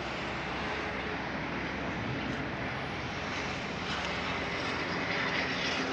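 Steady rushing background noise with no distinct event, and a faint low hum joining about four seconds in.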